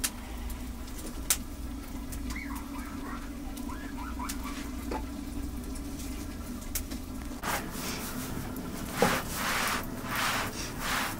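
Small wood fire crackling with a few sharp pops under a griddle of flatbread, with some faint chirps a few seconds in. From about seven seconds on come several short rustling, brushing strokes as hands press and smooth the naan dough on the hot griddle.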